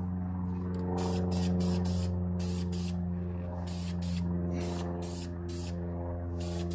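Aerosol can of red brake caliper paint spraying onto a brake caliper in short repeated bursts of hiss, with a steady low hum underneath.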